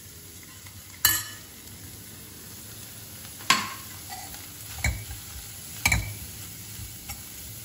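Chopped vegetables sautéing in butter in a stainless steel kadai, a faint steady sizzle, while a steel spoon stirs them and clinks sharply against the pan about four times.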